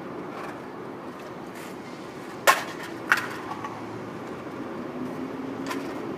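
Two sharp knocks about half a second apart, the first the louder, then a fainter click near the end, over a steady low outdoor rumble.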